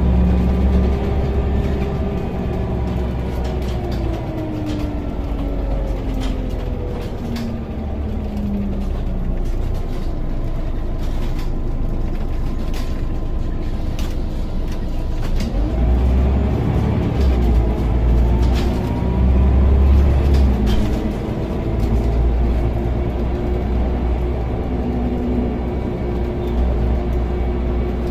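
Scania OmniCity bus heard from inside the saloon: the diesel engine's pitch falls over the first nine seconds or so as the bus slows, with scattered interior rattles. About sixteen seconds in the engine pulls away again with a deep rumble, its pitch rising and then holding steady.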